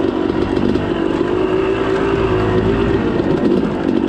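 Yamaha YZ250 two-stroke dirt bike engine running under way on a trail, holding fairly steady revs before wavering up and down near the end.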